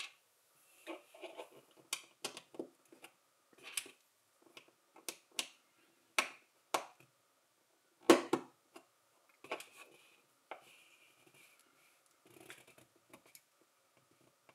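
LEGO plastic pieces being handled and pressed together: a run of sharp clicks and short rustles at irregular intervals, the loudest about eight seconds in.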